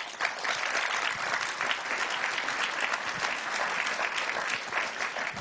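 Audience applauding: many hands clapping in a steady dense patter that begins at once and tapers off near the end.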